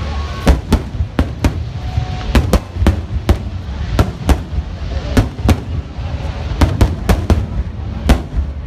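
Aerial fireworks bursting overhead: a rapid, irregular string of sharp bangs, a couple or so each second, over a continuous low rumble.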